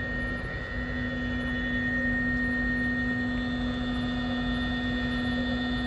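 Creality CR-10 S5 3D printer's cooling fans running steadily just after power-on, a steady hum with a thin high whine over it; the printer is running on a newly fitted power supply.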